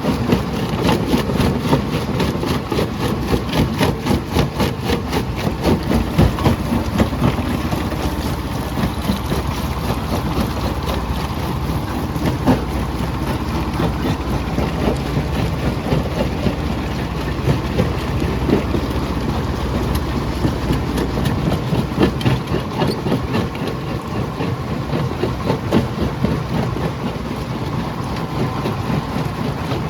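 Jaw crusher running, a steady heavy engine drone under dense, irregular knocks and cracks of stone being broken.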